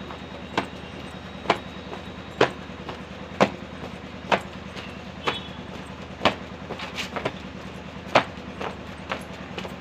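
Sharp slaps repeating about once a second in a steady rhythm from a person doing jumping-jack exercises, over a low steady hum.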